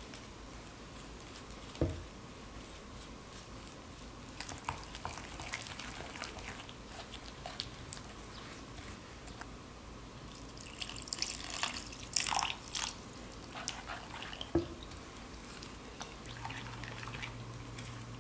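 Wooden spoon stirring and scraping a thick chili-paste seasoning in a ceramic bowl, with small clicks against the bowl. Water is poured in from a small cup about ten seconds in and briefly splashes as it is stirred into a thin sauce. Two sharp knocks, one about two seconds in and one near three-quarters through.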